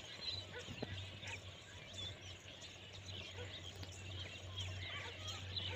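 Outdoor ambience of small birds chirping, many short calls, over a steady low hum.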